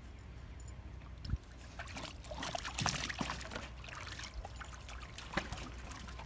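Golden retriever pawing and splashing water in a plastic kiddie pool, the splashing heaviest about two to three and a half seconds in.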